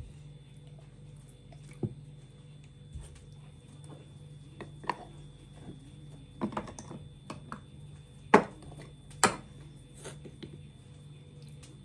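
Scattered light clicks and knocks of wooden kitchenware being handled: wooden spice pots, their lids and wooden spoons tapping against each other and a wooden bowl. Two sharper knocks come about a second apart in the second half.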